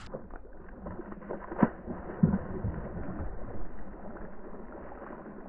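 Muffled knocks and bumps on a fishing kayak over low water noise, with two sharper knocks a little over a second and a half and just over two seconds in.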